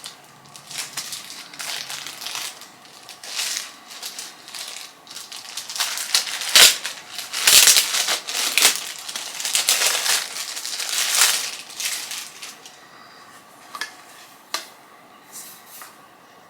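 Packaging being handled and opened: irregular crinkling and rustling, busiest and loudest in the middle, then a few scattered crackles.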